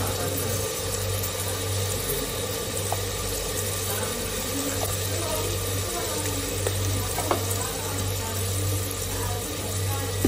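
Chopped onions frying in oil in an aluminium pot: a steady sizzle over a low hum, with a few faint clicks.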